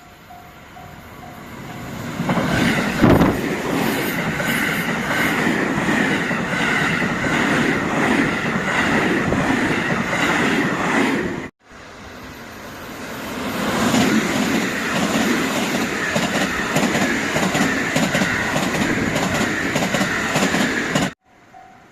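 Two trains passing a Japanese level crossing, one after the other: the crossing bell dings about three times a second at the start. Each train then swells into a loud rush of wheels, with rapid clacking over the rail joints and a steady high squeal. The first pass cuts off abruptly about halfway through, and the second builds up again and cuts off near the end.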